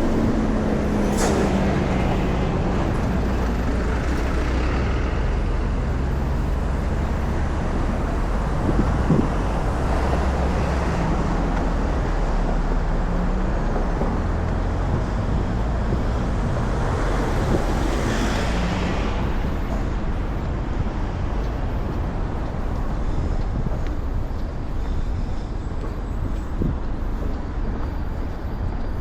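Road traffic passing close by: engines running with a steady low rumble, an engine note falling at the start, a short hiss about a second in and a longer one around 18 seconds.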